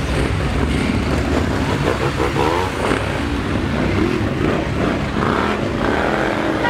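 A continuous stream of motorcycles riding past one after another, many engines rumbling together, with individual bikes revving up and down as they pass.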